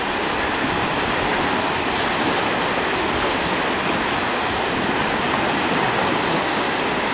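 Small sea waves breaking and washing through the shallows, a steady rushing surf.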